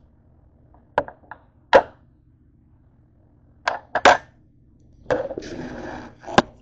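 Kitchen knife chopping through cooked chicken breast onto a cutting board: a handful of sharp knocks, some in quick pairs. Then about a second of scraping and rubbing, ending in one more sharp knock.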